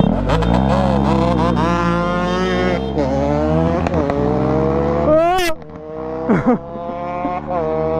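A vehicle engine accelerating hard from a launch, revving up and shifting up through the gears about four times, each shift dropping the pitch with a bang. About halfway through it settles into a steadier, lower note.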